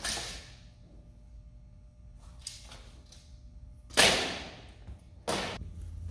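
Metal tube frame of a large folding projector screen knocking and clattering against the floor as it is swung down and laid flat. There is a sharp knock at the start, a few light clicks, the loudest knock about four seconds in, and a shorter noisy burst just after five seconds.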